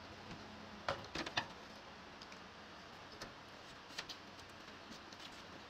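Faint scattered ticks and light rustling as rice paper and fresh greens are folded into a wrap by hand, with a small cluster of clicks about a second in and another near four seconds.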